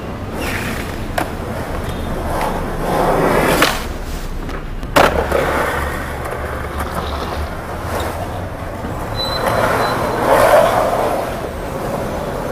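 Skateboard wheels rolling on concrete with a steady low rumble, swelling twice as the board passes. There is one sharp clack of the board about five seconds in.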